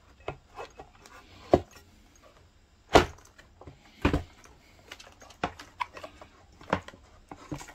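Scattered clicks and knocks of plastic parts being handled and fitted into the opened housing of a Tefal steam generator iron during reassembly, the two loudest knocks about three and four seconds in.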